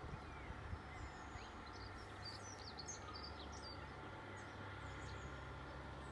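Faint, steady drone of two John Deere tractors ploughing at a distance, with birds chirping high over it, mostly in the first half.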